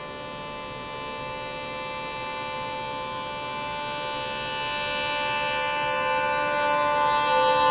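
Horn of an oncoming train's locomotive: one long, steady blast of several tones, growing louder throughout as the train approaches.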